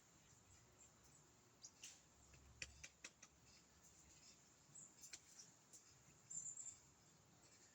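Near silence: a faint background with scattered soft clicks and a few faint, high chirps.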